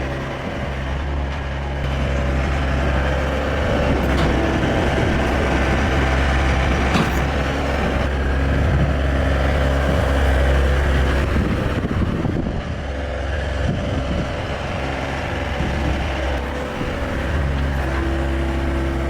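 Yanmar diesel engine of a Ramtec RS850 skid steer loader running. It runs steadily at first, then louder and busier for several seconds as the machine works, and eases back to a steady run near the end.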